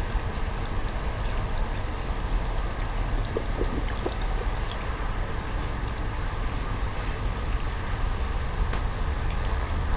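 Pool water sloshing and lapping as a person in a clothed tracksuit moves through a shallow inflatable pool, over a steady low rumble.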